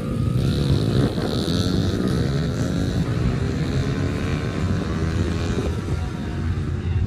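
A vehicle engine running close by, its pitch rising and falling over a low rumble.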